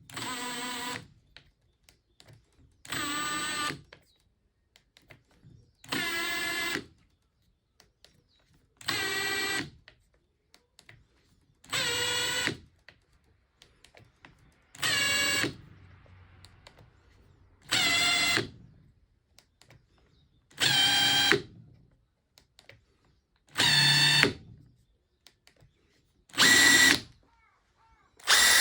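Makita TP141D cordless 4-mode impact driver's motor run in short trigger pulls: about ten bursts of whine, each about a second long and roughly three seconds apart, getting louder toward the end. It is being test-run after a repair.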